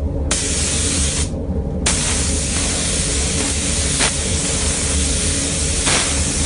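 Gravity-feed spray gun hissing as it lays the first coat; about a second in the spray stops for half a second, then runs on steadily. A steady low hum sits underneath.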